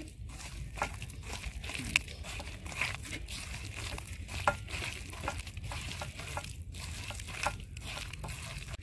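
A bare hand kneading and squishing thick ground pea-lentil pakora batter in a metal kadai, with irregular soft squelches and small clicks of fingers against the pan, over a faint steady low rumble.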